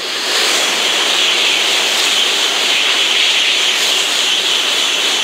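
Shinkansen bullet train running through at speed on the track beside the platform: a loud, steady rushing noise with a hissing high edge. It swells quickly at the start and holds as the cars pass.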